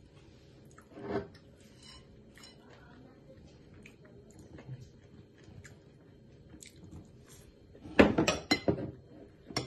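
A ceramic plate knocking and clinking against a table: one knock about a second in and a cluster of louder knocks near the end. Faint crunchy chewing of crispy waffle fries comes in between.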